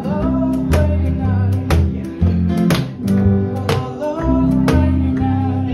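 Live band music: upright bass and guitars playing a steady strummed beat of about two strokes a second, moving into a held note near the end.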